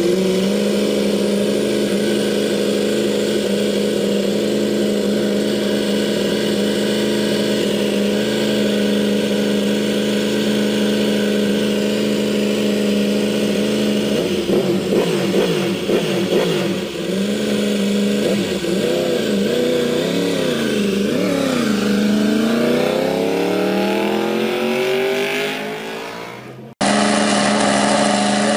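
Yamaha YZR-M1 MotoGP bike's 800 cc inline-four racing engine held at steady high revs. About halfway through it is blipped up and down several times, then swept up in a long rising rev. Near the end the sound cuts abruptly to an engine running steadily again.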